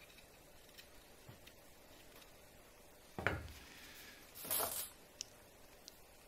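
Faint small ticks and scrapes of a knife shaving deer antler, then a single thump a little past three seconds as the knife is set down on the bench. About a second later comes a brief half-second rush of noise.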